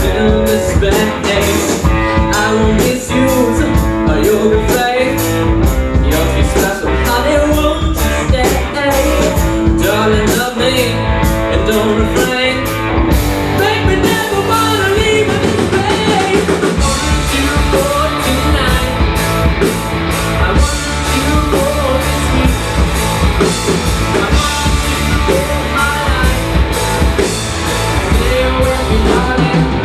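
Live rock band playing a rock and roll song at a steady loud level, with electric guitar, bass and drum kit and a singing voice.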